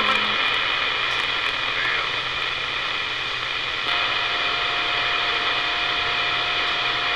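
CB radio receiver hiss and static on an open channel between transmissions. About four seconds in, the noise rises a little and a steady whistle comes in and holds.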